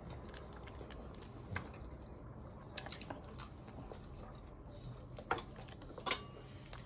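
Quiet room tone with scattered soft clicks and taps, the two sharpest about five and six seconds in: small handling noises as food is picked at by hand on a table.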